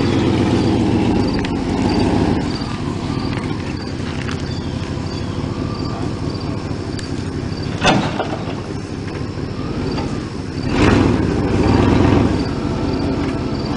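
A car engine running steadily, rising in level as it revs near the start and again near the end, with one sharp knock about eight seconds in.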